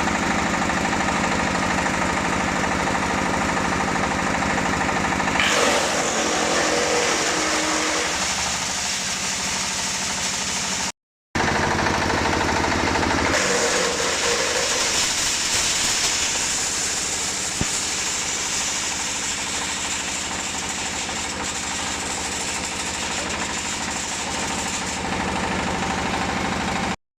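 Diesel-engined wood chipper of 150 mm capacity running steadily. Its sound shifts about five and a half seconds in and again about thirteen seconds in, with a brief break near eleven seconds.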